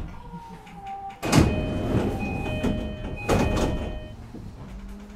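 Passenger doors of a JR East E233-5000 series electric train sliding, with two loud rushing sounds about two seconds apart. The door chime sounds repeated tones between and after them, stopping near the end.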